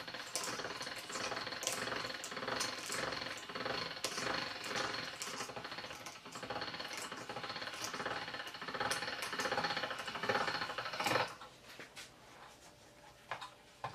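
Hand-cranked chrome pasta machine rattling and clicking as its crank turns the rollers, pressing a thin sheet of dough through. The cranking stops about eleven seconds in, leaving only a couple of faint knocks.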